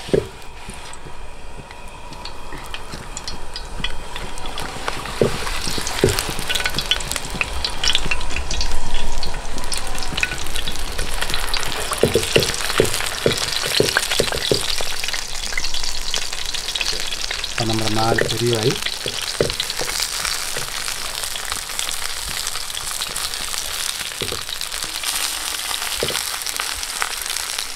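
Banana-leaf parcels of masala-coated fish and chicken sizzling in hot coconut oil in a pan: a steady frying hiss with scattered crackles and pops, loudest about a third of the way in.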